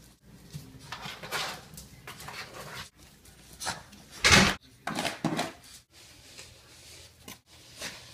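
Cardboard box scraping and bumping on a wooden floor as a dog noses and pushes at it, in several short bouts, the loudest a brief heavy scrape about four seconds in.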